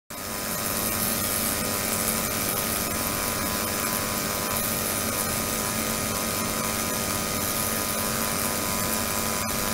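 Ultrasonic tank (72 kHz, 300 W) running with water in the container, giving a steady hiss mixed with several steady hum tones, and one short click near the end.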